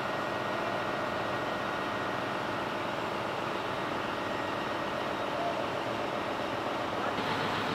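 Steady machinery noise of a ship's engine room, where a diesel generator is running: an even drone with faint steady tones and no distinct knocks.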